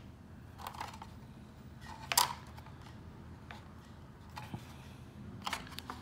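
A few scattered sharp clicks and light taps from hands handling plastic model-kit parts and one-handed bar clamps, the loudest about two seconds in.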